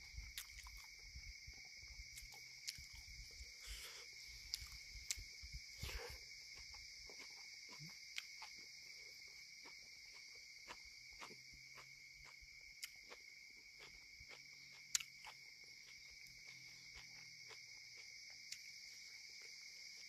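Quiet, steady chorus of night insects, a constant high trill at two pitches. Scattered small clicks and taps of eating by hand from a metal lunch box sound over it, the sharpest about fifteen seconds in.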